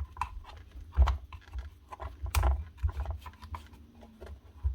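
Irregular scratchy rustling and small clicks of hands working dry grass out of a clogged cordless strimmer head, with a couple of sharper plastic knocks about a second and two and a half seconds in.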